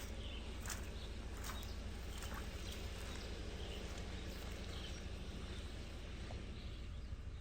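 Quiet outdoor ambience: a steady low rumble with faint, scattered bird chirps and a few soft clicks in the first couple of seconds.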